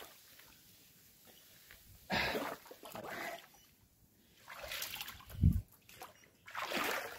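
Mountain bike tyres splashing through water on a flooded trail, in several short bursts after a quiet start, with a sharp low thump about five and a half seconds in.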